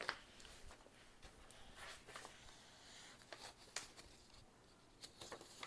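Near silence with a few faint, brief rustles and light taps of paper pages being handled and laid in place.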